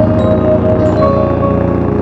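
Ambient background music with soft chime-like mallet notes and held tones, over the steady drone of a paramotor engine; the notes thin out about a second in, leaving mostly the engine.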